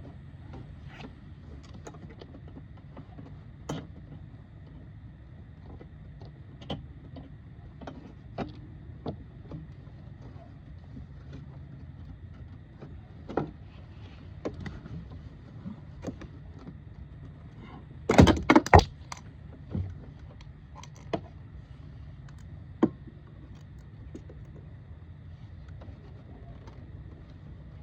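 Plastic interior pillar trim being pulled off a car, with scattered small clicks and knocks, then a quick cluster of loud snaps about eighteen seconds in as the retaining clips let go. A steady low hum lies underneath.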